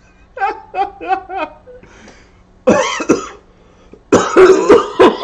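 A man laughing in four quick pulses, then breaking into loud, hard coughing near the middle and again near the end.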